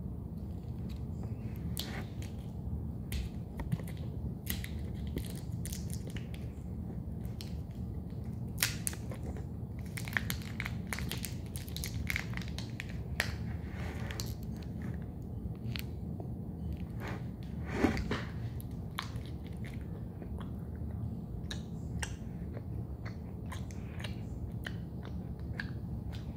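A person chewing and biting chocolate close to the microphone: irregular crunches and clicks, the loudest about eighteen seconds in, over a steady low hum.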